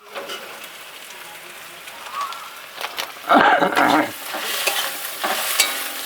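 Spiced onion masala frying in hot oil in a kadai, sizzling steadily with the scrapes of a spatula as it is stirred. A brief loud call cuts in about three seconds in.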